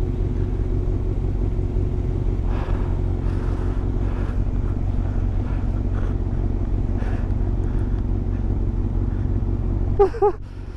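Yamaha YZF600 inline-four engine running steadily at cruising speed while riding, with an even rush of wind noise over it. A brief voice sound comes near the end.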